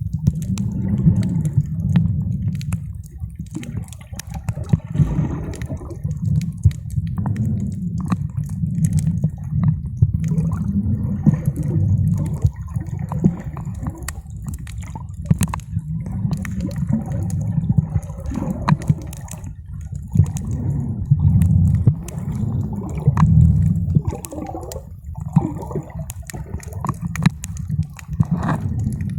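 Muffled sea water heard from a camera held underwater: a steady low rumble with many small clicks and occasional swells of water movement.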